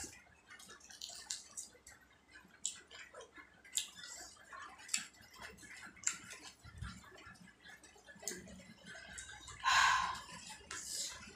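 Close-miked chewing with scattered wet mouth clicks. About ten seconds in comes a louder, rough tearing sound as a piece of tawa naan is torn off by hand.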